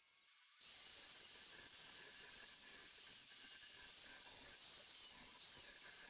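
Handheld plasma cutter slicing through 3/8-inch steel plate: a steady hiss that starts suddenly about half a second in and runs on evenly.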